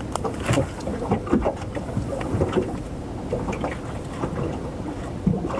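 Small waves lapping and slapping irregularly against the hull of a small moored fishing boat, with a low rumble of wind on the microphone.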